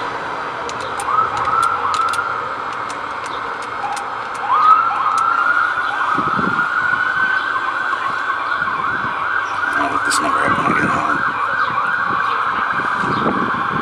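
Emergency vehicle siren passing in the street: a few short rising whoops, then a long rising wail about four seconds in that changes about halfway through to a fast up-and-down yelp, which carries on to the end.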